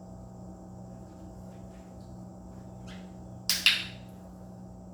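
Dog-training clicker pressed once, a sharp double click (press and release) about three and a half seconds in, marking the puppy's correct behaviour before the treat. A steady low hum runs underneath.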